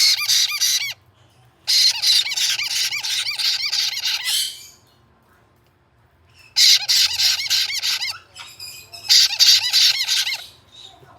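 Caique parrot chick's rapid, raspy begging squawks, coming in four bouts of quick repeated pulses with short pauses between them, as it is fed by an adult.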